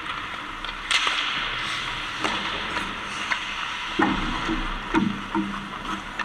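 Ice hockey play: skates scraping the ice under a steady hiss, with four sharp clacks of sticks and puck, about a second apart.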